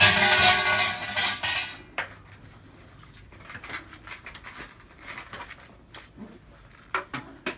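Shinto shrine bell (suzu) shaken by its rope, a loud metallic jangle that rings on for about two seconds and dies away. A few sharp clicks follow near the end.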